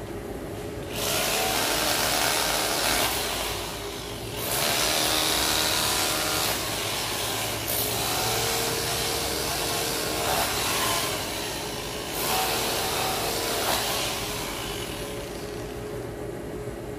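Handheld power tool cutting into the road surface, run in several bursts of a few seconds each with short pauses between, and stopping a few seconds before the end.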